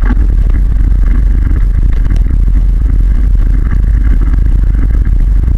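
Loud, steady rumble with rattling and clatter as a camera rides along a rough dirt forest track.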